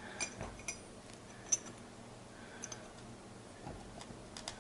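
A few light metallic clicks and clinks of small steel gearbox parts being handled as a synchro ring and hub are fitted onto a Ford 2000E gearbox shaft, the loudest click about one and a half seconds in.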